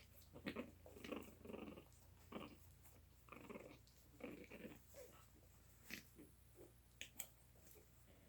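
Month-old puppies making a run of faint, short vocal noises, with a few sharp clicks near the end.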